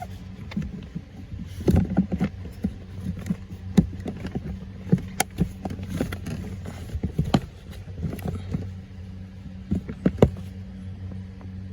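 Scattered plastic clicks, knocks and rattles from handling and seating a new cabin air filter in its housing under the glove box of a 2017 Porsche Cayenne, over a steady low hum.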